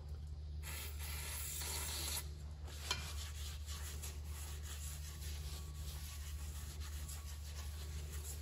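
A cloth rag dampened with brake cleaner rubbing over the face of a new slotted brake rotor in soft, repeated wiping strokes, cleaning off the anti-rust oil residue. A steady low hum sits underneath.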